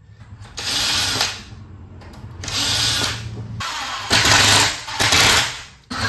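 Cordless drill-driver running in about four short bursts, driving in the screws that hold a door deadbolt.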